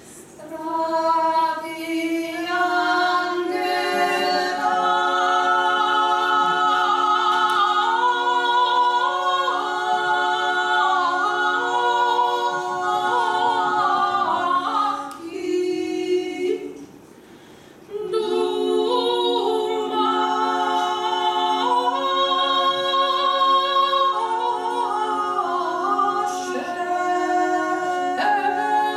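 Small women's choir singing a cappella in close harmony, long held chords with the parts moving between them. The voices stop briefly about two-thirds of the way through, then come back in together.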